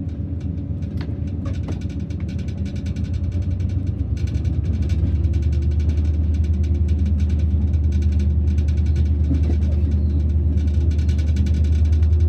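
BB 60000 diesel locomotive's engine running under load, a steady low drone heard from the cab that grows louder over the first five seconds as the locomotive pulls.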